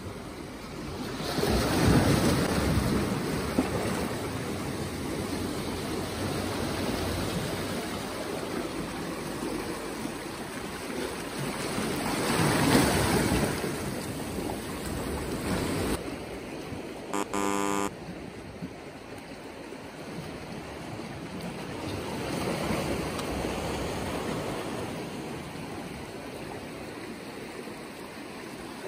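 Sea waves surging and washing around concrete tetrapods, the rush swelling three times about ten seconds apart. A short pitched tone sounds a little past halfway.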